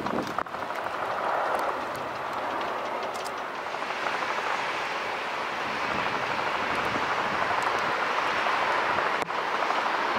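A jet airliner's engines running at low power as it taxis, a steady rushing noise that grows a little louder about four seconds in.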